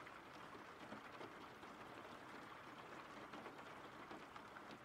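Faint steady rain with light scattered drop ticks.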